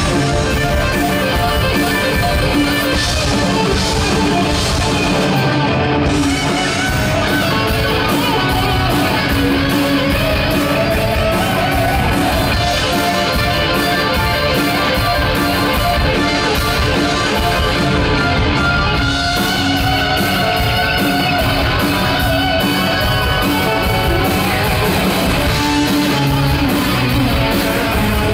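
Live rock band playing an instrumental passage: electric guitars over drums at steady full volume.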